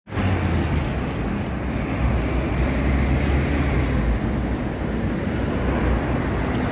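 Street traffic noise: a steady low rumble of road vehicle engines, with a deeper hum that grows stronger about two seconds in.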